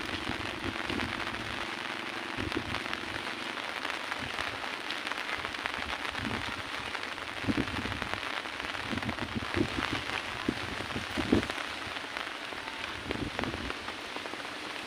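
Heavy rain falling steadily, a dense patter of drops, with a few soft low thumps in the second half.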